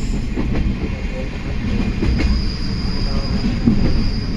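Train running heard from inside an old-type passenger carriage: a steady rumble from the running gear with scattered wheel clicks over the rail joints. A thin, high wheel squeal joins a little after halfway.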